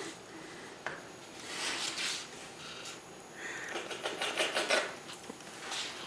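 A man lapping and slurping water from a paper plate with his mouth, in quick wet runs, with a single faint click about a second in.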